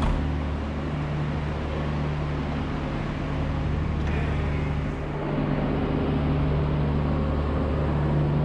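MB Trac 1600 tractor's six-cylinder diesel engine running steadily under way, heard from inside the cab with the roof hatch open.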